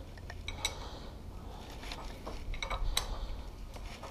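Light metallic clicks and clinks of a ring spanner on the steel cap of a Suzuki DR650 front fork leg as the cap is fitted and tightened, in small clusters about half a second in and near three seconds in.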